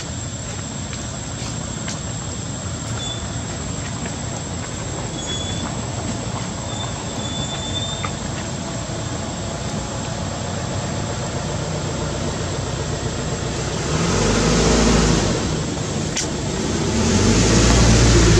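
A motor vehicle engine swells up and fades twice, first about fourteen seconds in and again near the end, over a steady outdoor hiss with a thin, high, unbroken whine.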